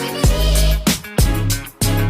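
Background music with a steady beat, bass line and a melodic vocal or synth line.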